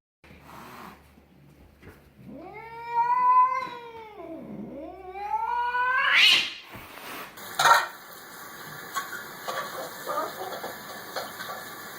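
A domestic cat yowling: one long drawn-out caterwaul that rises, dips, then climbs to a high shrill peak before breaking off. A sharp click follows a second later, then faint small noises.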